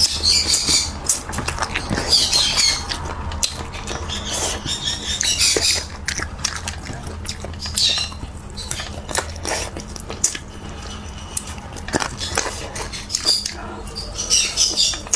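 Close-up mouth sounds of eating spicy chicken feet: chewing, smacking and sucking, with many irregular wet clicks.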